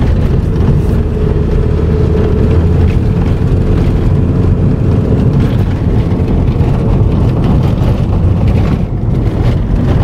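Steady low rumble of a car driving at road speed on a paved highway, its engine and tyre noise heard from inside the cabin.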